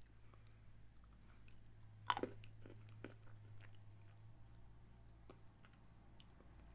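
Faint chewing of a small hard sugar candy, with soft mouth clicks and one short louder mouth sound about two seconds in.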